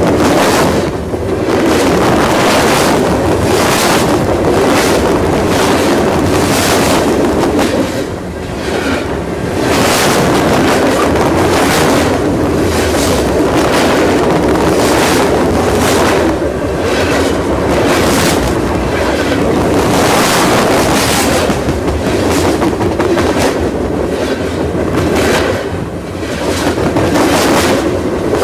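Union Pacific railcars rolling directly overhead, heard from between the rails: a loud, continuous rumble of steel wheels on rail, cut by repeated sharp wheel clacks. The loudness dips briefly a few times.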